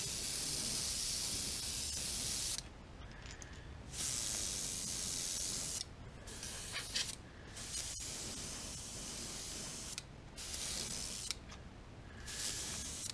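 Airbrush spraying paint in hissing bursts, the trigger pressed and let go about six times. The first two bursts last about two seconds each and the later ones are shorter, with brief pauses between.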